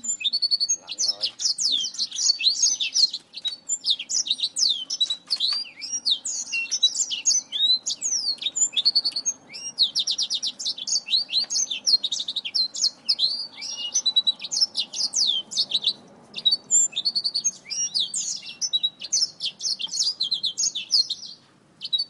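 Zebra finches chattering and calling: a dense, rapid run of short high chirps that carries on almost without a break, with brief pauses about 3, 16 and 21 seconds in.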